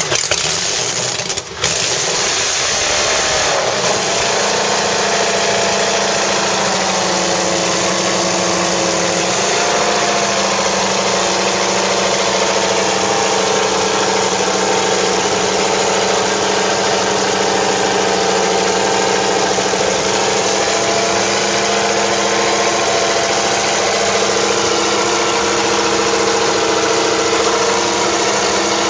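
Mercedes-Benz W196's 2.5-litre straight-eight racing engine idling steadily as it warms up, with a brief dip in level about a second and a half in.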